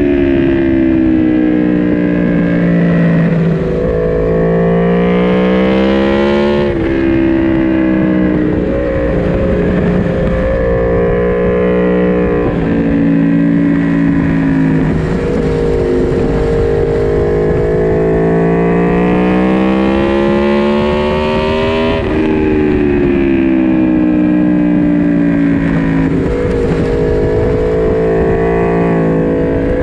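A naked superbike's four-cylinder engine at racing speed, heard onboard. The revs sag slowly, then climb, with sudden drops in pitch about seven seconds in and again about twenty-two seconds in.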